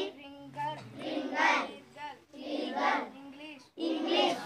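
Children's voices reciting phrases in a sing-song chant, about four phrases with short breaks between them.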